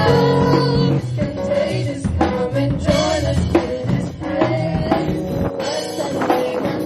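A live band performing: a woman singing a melody into a microphone over a Nord Electro stage keyboard and a drum kit keeping a steady beat.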